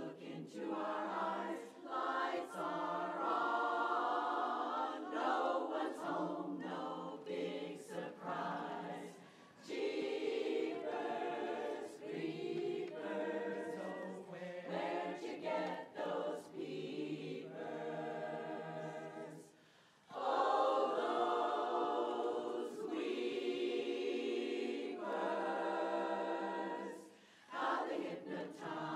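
Women's barbershop chorus singing a cappella in close four-part harmony. The sustained chords come in phrases, with brief pauses between them, the clearest about twenty seconds in.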